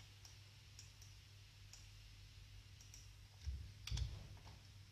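Faint, scattered clicks of a computer mouse and keyboard over a low steady hum, with two louder dull thumps about three and a half and four seconds in.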